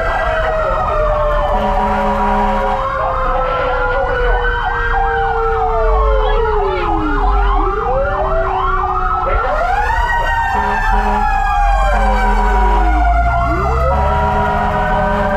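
Fire engine sirens heard from inside the cab of a truck on an emergency run, more than one siren tone sounding at once. They rise and fall in long sweeps, switch to a fast up-and-down yelp around the middle, and run over the low rumble of the truck's engine.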